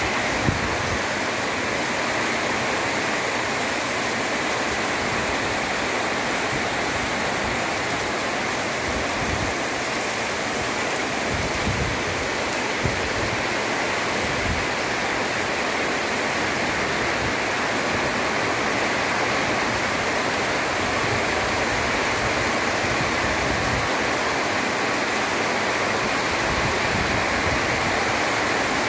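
Heavy rain pouring down in a steady, dense hiss onto paving and carport roofs, with a few brief low gusts of wind on the microphone partway through.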